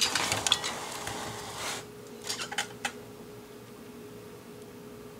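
Hands handling the opened plastic CD player and the magnifier lamp: light clatter and rustling, then a few small clicks about two and a half seconds in. A steady faint hum carries on underneath.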